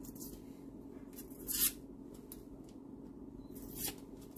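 Paper wrapper being peeled and torn off a cardboard tube of refrigerated biscuit dough: a few short scratchy tearing strokes, the loudest about a second and a half in.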